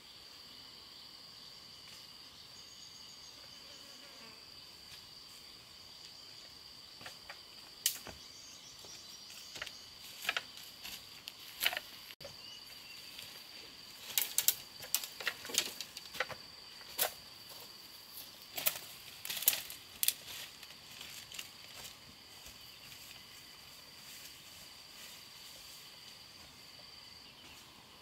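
Insects droning steadily in a high tone, with a fainter second tone beneath. From about eight seconds in, for some twelve seconds, a run of sharp crunches and snaps: footsteps through undergrowth, breaking twigs and dry leaves.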